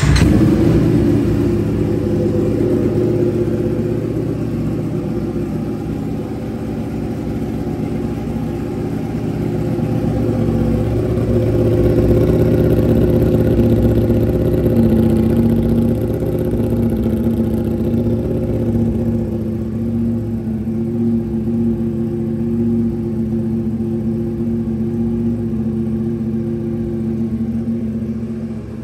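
Ducati Panigale V4 engine running through an SC Project S1 slip-on exhaust with mid-pipe, just after starting: loudest right at the start, then running steadily at idle with the level swelling and easing gently.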